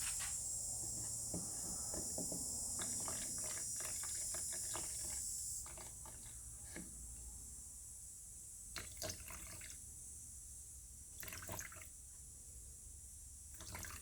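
Thick sandable primer poured slowly into a plastic mixing cup, with small drips and light clicks of the cup and can. A steady high hiss runs under it and stops about six seconds in.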